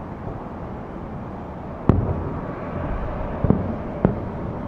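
Distant aerial firework shells bursting: three booms, the first the loudest and the last two half a second apart, over a steady low background rumble.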